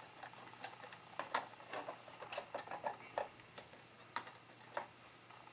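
Plastic battery cover being worked onto the drum of an airsoft M4 electric drum magazine: irregular light clicks and taps of plastic against plastic as it is pressed and shifted into place, the cover binding on the wires.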